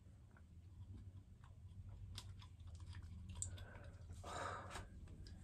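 Faint clicks and rustling of fingers working liquid tape-in extension remover into hair at the roots, with a brief louder rustle about four seconds in.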